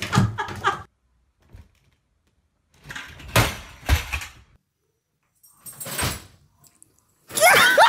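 A few dull thumps and knocks with stretches of silence between them, then a loud burst of a person's high-pitched voice near the end.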